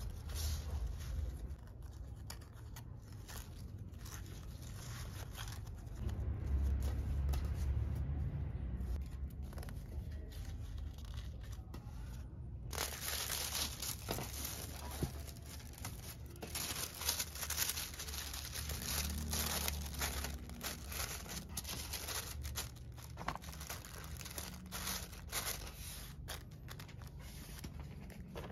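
Hands handling a satin ribbon, then tissue paper rustling and crinkling as a folded garment is wrapped; the crinkling starts abruptly about halfway through and is the loudest part, full of small crackles.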